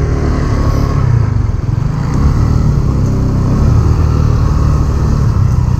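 Motorcycle running along the road at speed, with its engine and heavy wind rumble loud and steady.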